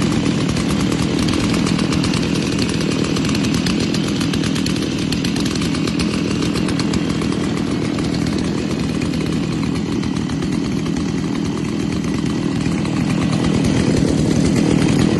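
Several Stihl two-stroke chainsaws idling together, a steady, fast-pulsing engine run.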